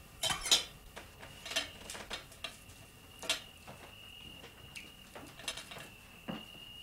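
Dishes and cutlery clinking, with a scattered handful of light knocks and taps as a meal is eaten at a table; the sharpest clinks come in the first second.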